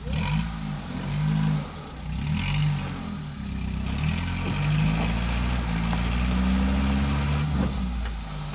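Stock Suzuki Samurai's small four-cylinder engine revving in repeated short surges under load as it crawls up rock ledges, then holding a longer, slowly rising pull for about three seconds before easing off near the end.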